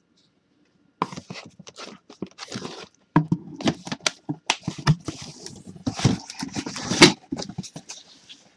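Cardboard rustling and scraping with irregular sharp knocks as sealed hobby boxes of baseball cards are handled and pulled from their cardboard case, starting about a second in.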